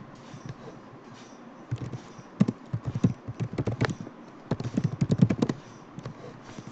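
Typing on a computer keyboard: quick runs of key clicks, one from about two to four seconds in and a second shorter burst around five seconds, as a short command is typed.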